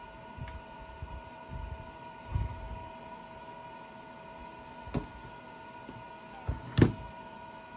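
Glitter 811H battery spot welder firing twice, two sharp snaps about two seconds apart near the end, as it welds fluxed 0.2 mm copper strip to copper at low power. A steady electrical hum runs underneath, with a few soft handling knocks.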